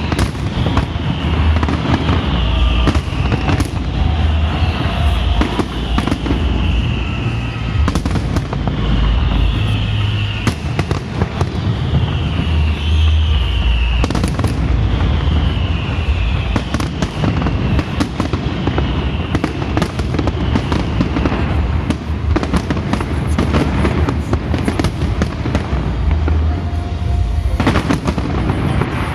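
Fireworks display: a continuous barrage of sharp bangs and deep booms, with a short falling tone repeating every second or two.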